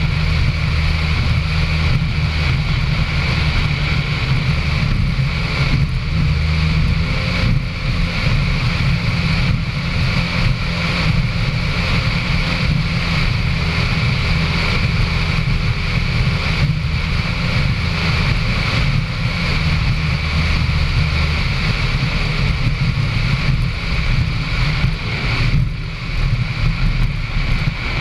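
Racing powerboat running at speed, heard on board: a steady, heavy engine drone mixed with wind buffeting the microphone and water rushing past the hull.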